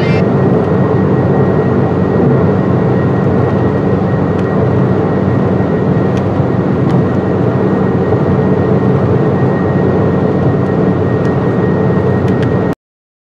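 Loud steady engine rumble with a thin high whine held above it. It cuts off abruptly near the end.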